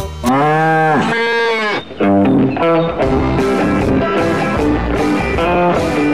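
A cartoon cow's long moo, bending up and then down in pitch, lasting about a second and a half. It is followed by a children's song melody with guitar.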